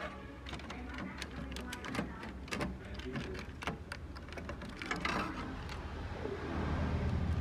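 Irregular small clicks and plastic rattles of wire-harness connectors and circuit boards being handled by hand inside an opened Kyocera TASKalfa 180 copier, over a low steady hum.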